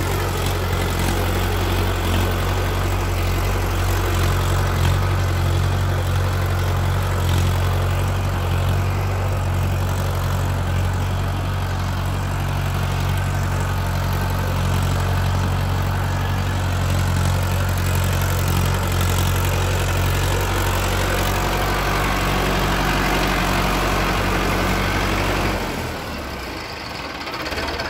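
Mahindra Arjun 555 DI tractor's diesel engine running steadily as the tractor drags sand with its rear blade. The engine sound drops away suddenly about two seconds before the end.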